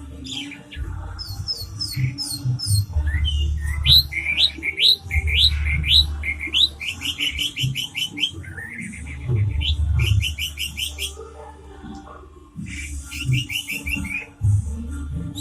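Orange-headed thrush singing a fast, varied song: runs of short rising whistles and rapid repeated chattering trills, with brief pauses, over a low steady hum.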